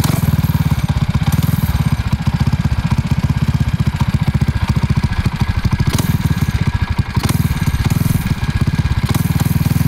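Tillotson 225 single-cylinder four-stroke engine, swapped into a street bike frame, running at idle with a steady, rapid put-put of firing strokes.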